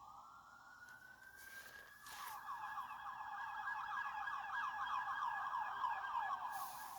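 Emergency vehicle's electronic siren: a wail rising and holding high, then switching about two seconds in to a fast yelp, getting louder as it approaches.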